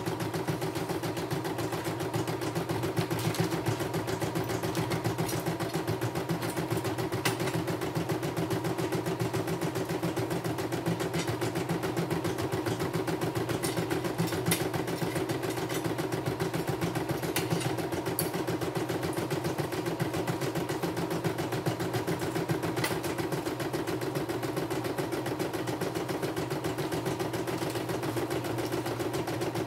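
CNY E960 computerized embroidery machine stitching a design: the needle runs in a fast, steady rhythm while the embroidery hoop shifts the fabric, with a few sharp clicks along the way.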